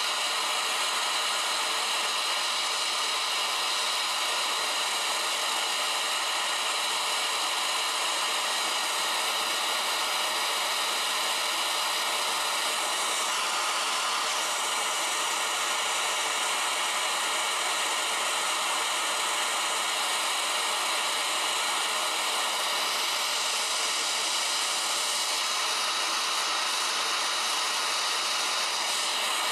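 Gas torch flame hissing steadily as it melts silver in a ceramic melting dish.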